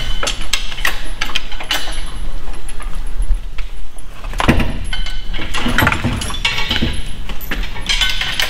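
Lifting chain rattling, with scattered metal clinks and knocks, as an Audi R8's R-tronic transmission hangs from a shop crane and is worked free of the engine.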